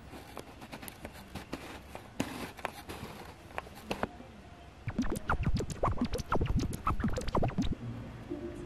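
Scratching and rustling. Light, scattered scratches at first, then a dense run of louder scratches for about three seconds from about five seconds in.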